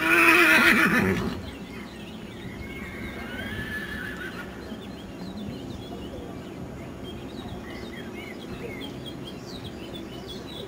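A horse whinnies loudly for about a second and a half at the start, then it is much quieter, with faint high chirps.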